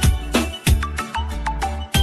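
Upbeat background music with a steady beat, a strong bass line and regular percussive hits.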